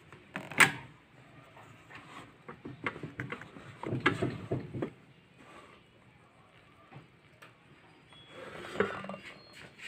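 Plastic air fryer basket drawer being pulled open: a sharp click about half a second in as the handle releases, then rattling and scraping as the drawer slides out, with another knock near the end.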